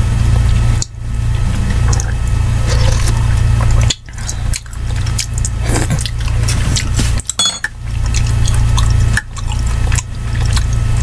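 Eating soup with a metal spoon from a ceramic mug: the spoon stirring and clinking in the mug, wet sips and slurps of broth, and chewing, with scattered short clicks. A steady low hum runs underneath.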